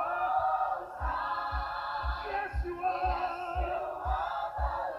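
Closing music: a choir singing, with a steady low beat about twice a second coming in about a second in.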